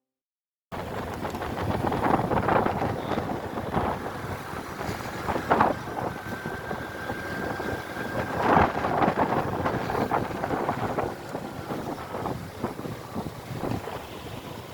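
Wind buffeting a phone's microphone on a moving motorcycle, with road and traffic noise underneath; it starts abruptly about a second in, after silence, and comes in uneven gusts.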